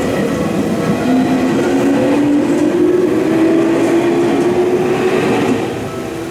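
Electric train passing a level crossing, with rumbling wheel-on-rail noise and a motor whine that rises steadily in pitch. The train noise drops away about five and a half seconds in, and the crossing's warning bell rings through again near the end.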